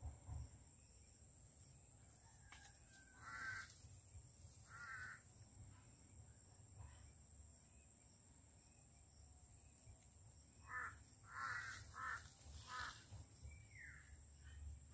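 Crows cawing faintly over near silence: two calls a few seconds apart, then a quick run of four calls about eleven seconds in.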